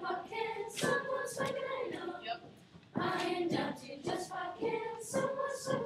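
Sixth-grade children's choir singing together, phrase after phrase, with a short break about two and a half seconds in.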